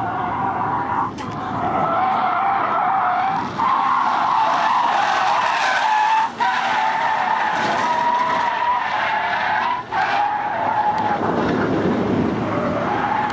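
A sedan's tyres squealing without a break as it drifts in a long sideways slide, with the engine running hard under it. The squeal wavers in pitch and cuts out for an instant four times.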